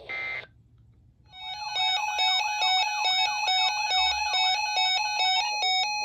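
A brief electronic beep, then after about a second's pause a weather alert radio's alarm sounds: a fast, repeating pattern of beeping tones, about four a second, that turns into a slower two-note alternation near the end. It is the radio's alert for a new severe thunderstorm warning being received.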